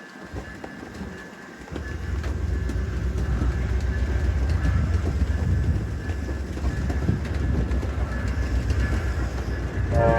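Amtrak passenger train passing: a heavy low rumble comes up about two seconds in and holds steady. The train's horn starts to sound right at the very end.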